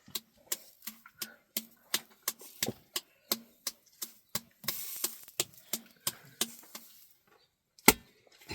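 Steady chopping on wood, about three strokes a second, with one much harder strike near the end.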